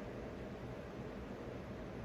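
Faint, steady background hiss of room tone, with no distinct event; the honey pouring into the jar makes no sound that stands out.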